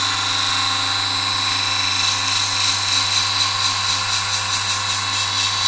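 Steel knife blade pressed against a running powered sharpening wheel while the bevel on the second side is ground. The grinding hiss pulses a few times a second over a steady motor hum, then stops abruptly at the end.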